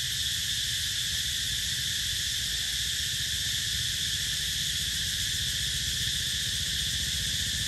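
Steady high-pitched drone of a chorus of insects, unbroken throughout, over a low motorcycle engine rumble.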